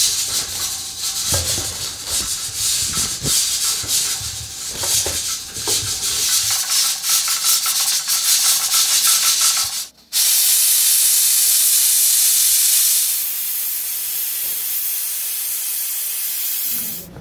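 A noisy stretch with many small clicks lasts for about ten seconds. After a sudden break it gives way to a pressure cooker's valve venting steam in a loud, even hiss, which drops a little in level a few seconds later.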